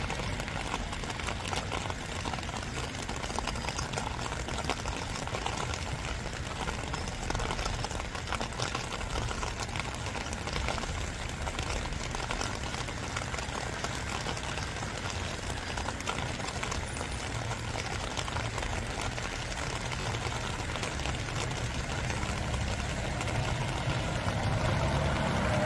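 Steady rain falling, a dense even hiss of drops, over a low rumble that grows slightly louder near the end.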